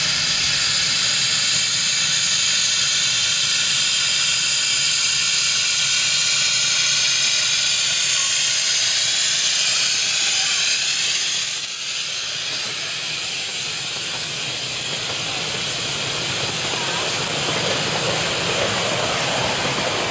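A miniature steam locomotive approaching and passing with a steady, loud hiss of escaping steam. About twelve seconds in the hiss eases as the engine goes by, and the rattle of its loaded passenger carriages' wheels on the track takes over, with a brief high squeak or two.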